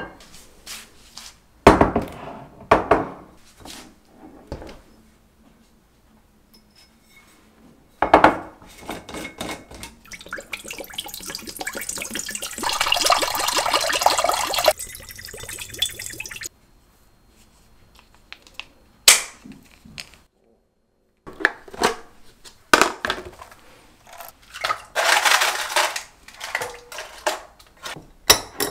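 Kitchen handling: a few sharp knocks of cookware, then water poured from a pitcher into a pot for about six seconds, heaviest in the middle. Near the end come quick clinks of a glass storage jar's wire-clamp lid being opened.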